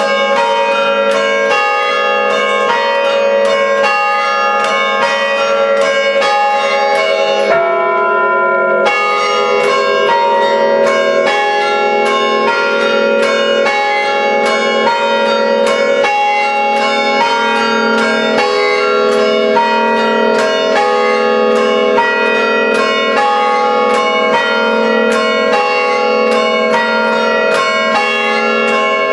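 Five church-tower bells struck by hand through rope pulls, playing a quick, rhythmic traditional chime of several strokes a second in changing patterns. The strikes break off briefly about eight seconds in while the bells ring on, then resume.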